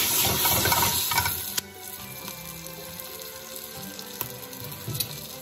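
Butter and olive oil sizzling in a hot frying pan with whole star anise and cloves as the pan is swirled. About a second and a half in, the sizzle drops suddenly to a quieter, steady hiss.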